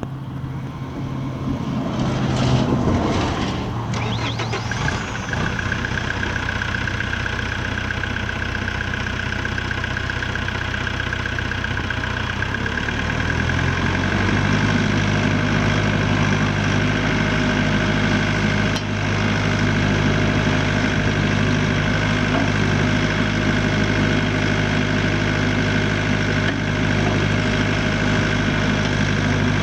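The 49 HP Deutz diesel engine of a Ditch Witch RT45 ride-on trencher starts about two seconds in and settles into a steady idle. About thirteen seconds in it is throttled up, then runs steadily at the higher speed.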